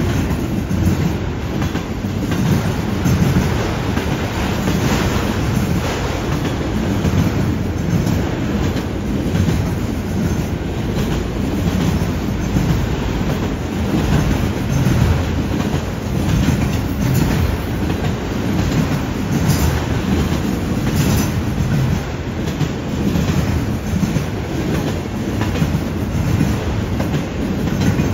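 Autorack freight cars rolling past on steel rails: a steady wheel-on-rail rumble with a repeating clickety-clack as the wheels cross the rail joints.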